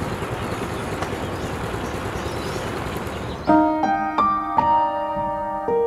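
Steady background noise with no clear tone, then soft piano music comes in about three and a half seconds in: a few struck notes that ring on, with a new note about every half second.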